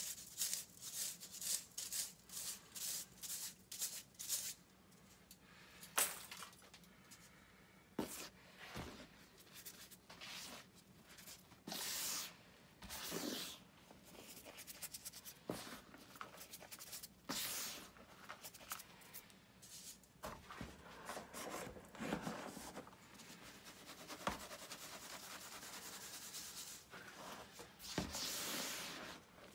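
Gym chalk being rubbed and crushed by hand through a stainless steel mesh sieve and stirred in the powder: a dry, scratchy rasping. It starts as quick strokes about twice a second, then becomes irregular swishes with a few sharp crunches of breaking lumps.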